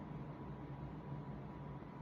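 Steady low hum and hiss of room noise, with a faint high steady tone; no snore stands out.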